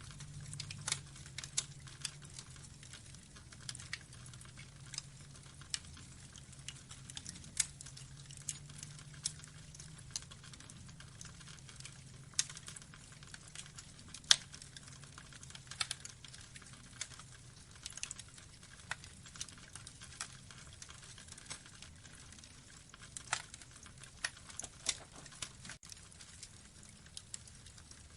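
Burning wood logs crackling: irregular sharp pops and snaps over a faint steady low background, with one louder pop about halfway through.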